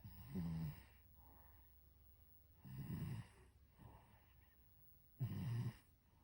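A sleeping cat snoring: three loud snores about two and a half seconds apart, each lasting about half a second, with fainter breaths between them.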